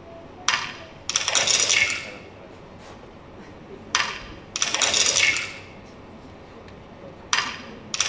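Egg-cracking sound effect played three times as the eggs hatch, each a sharp crack followed by about a second of crackling, at regular intervals of roughly three and a half seconds, the last starting near the end.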